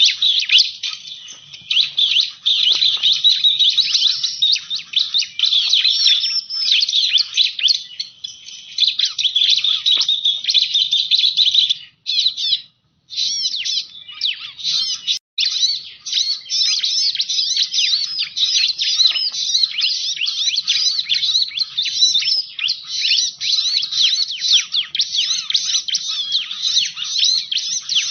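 Bar-winged prinia (ciblek) song played as a bird-trapping lure call: rapid, continuous, high-pitched chirping with overlapping notes, broken by a brief silence about twelve seconds in.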